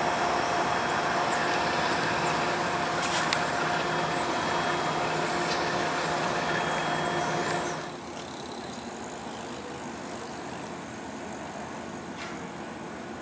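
GE P32AC-DM diesel locomotives idling, a steady engine hum with a whine over it, and a short air hiss about three seconds in. After about eight seconds this gives way to a quieter, even rumble of a passenger train passing at a distance.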